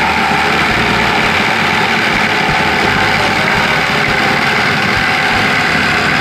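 Corded electric jigsaw running steadily as it cuts through plywood.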